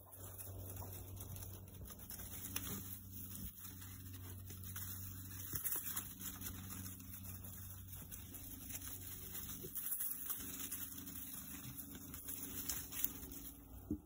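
Mangalica and Old Spot piglets rooting and trotting through dry leaves and soil, with soft animal sounds and many small irregular rustles and clicks over a faint steady low hum.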